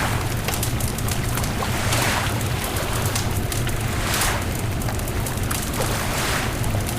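Beach bonfire crackling and popping, with surf washing in swells about every two seconds and a steady low rumble underneath.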